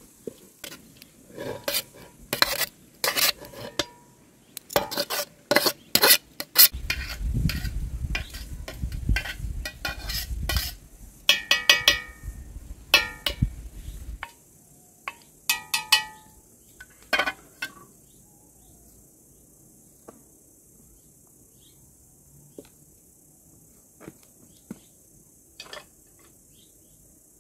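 Cookware clatter: a metal tray, pot and spoon clink, scrape and knock as cooked rice is scraped into a pot and handled. The clatter is busy through the first half, with two ringing metal knocks about 12 and 16 seconds in, then only a few light clicks. A steady high insect buzz runs underneath.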